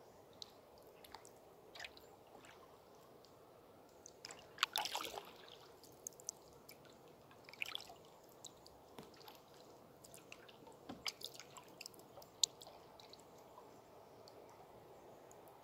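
Scattered water drips and small splashes close by, the biggest cluster about five seconds in, over a faint steady wash of flowing river water.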